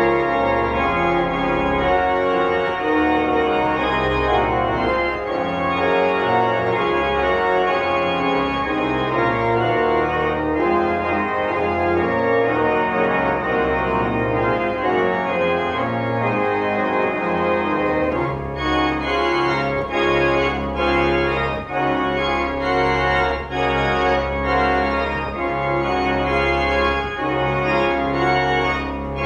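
Organ playing sustained chords over a low bass. About two-thirds of the way through, the upper notes turn shorter and more separate while the bass holds.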